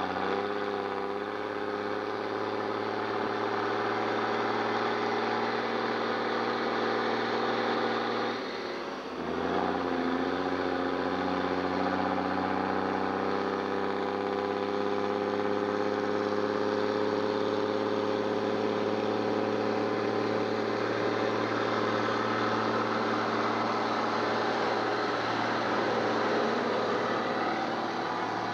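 A 1958 Kenworth logging truck's Cummins 220 diesel labouring uphill under a full load of logs, with a deep, open exhaust note through a four-inch pipe and a gutted muffler. About nine seconds in, the engine note breaks off briefly for a gear change. It then comes back lower and climbs slowly in pitch as the truck pulls on, passing close by near the end.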